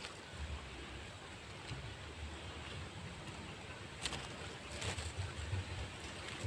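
Quiet outdoor background with a low wind rumble on the microphone. A few faint clicks and rustles about four and five seconds in as hands bend a wired serut bonsai stem and brush its leaves.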